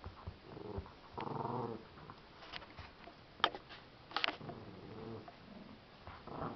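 Small dogs growling in play over a stuffed toy, in a few short spells, with a few sharp clicks and scuffs near the middle.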